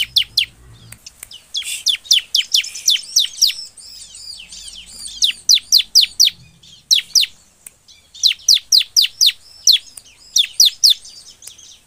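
Bar-winged prinia (ciblek) singing in rapid bursts of sharp, high notes, each slurring quickly downward, in runs of about four to eight notes with short pauses between.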